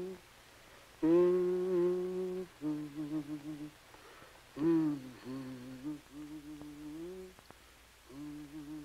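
A woman humming a slow, wordless tune in held notes, phrase after phrase with short breaths between. The strongest phrase comes about a second in.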